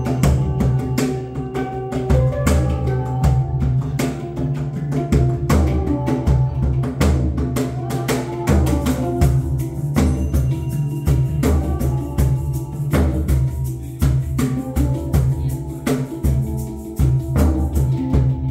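Hand-percussion jam: cajon and hand-drum strikes keep a quick steady rhythm under a shaken rattle, with melodic ringing notes from a handpan changing pitch throughout.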